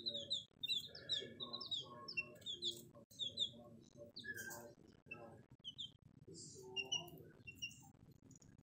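A brood of baby chicks peeping: many short, high, downward-sliding peeps from several chicks at once, coming thick and irregular.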